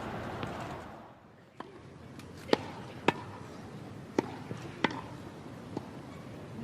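Tennis ball struck by rackets and bouncing on a court in a rally: a series of sharp pops, the loudest coming in pairs about two thirds of a second apart. A steady background noise fades out in the first second.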